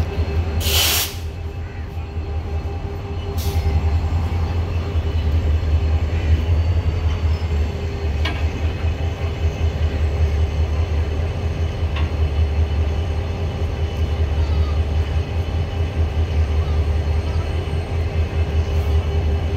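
HGMU-30R diesel-electric locomotive engine running with a deep steady rumble and hum. A loud hiss of released air comes about a second in and a shorter one a few seconds later, with a couple of sharp metallic clicks further on.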